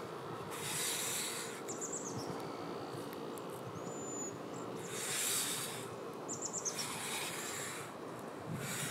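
Outdoor ambience: a steady background hiss that swells several times for about a second, with small birds giving two quick runs of high chirps and one short whistle.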